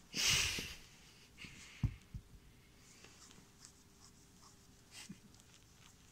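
A tennis ball rolled across carpet with a brief rustling scrape, then a couple of soft thumps about two seconds in, followed by faint scratches and taps as a cat bats the ball with its clawed paws.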